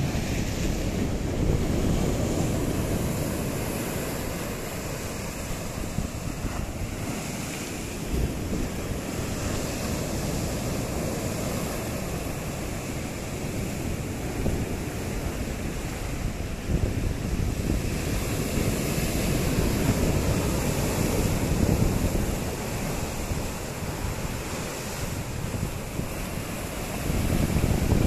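Sea surf breaking on a flat rock shelf and washing over it in foam, a continuous rushing that swells louder as each larger wave comes in.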